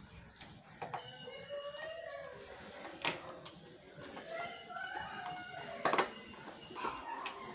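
A Rottweiler chewing mutton bones, with two sharp cracks of bone, about three and six seconds in. Two long, wavering animal calls sound in the background.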